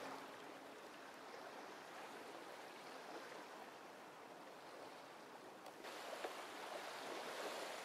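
Faint, steady outdoor water ambience, like small waves lapping on open water. It gets a step louder and brighter about six seconds in, with a couple of light ticks after that.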